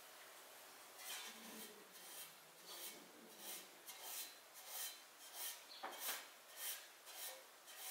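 Pastry brush bristles sweeping over the inside of a metal loaf pan, greasing it with butter. Faint, repeated brush strokes at about two a second, starting about a second in.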